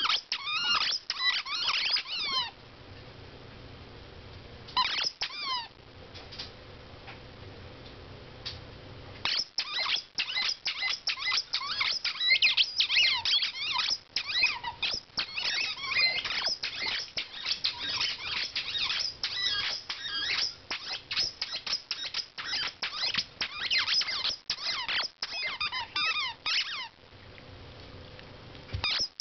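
Rapid high-pitched squeaking, many short squeaks a second that slide in pitch. It comes in runs: a short one at the start, a brief one a few seconds in, a lull, then a long unbroken run through most of the rest.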